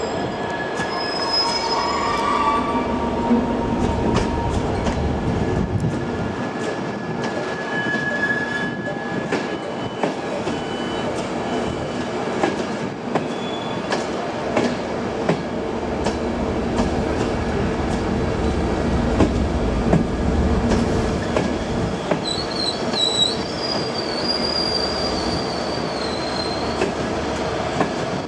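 Transport for Wales Mark 4 coaches behind a Class 82 driving van trailer rolling slowly past on curved track. The wheels squeal in thin high tones, a wavering squeal rises about three quarters of the way through, and the wheels click over rail joints under a steady rumble.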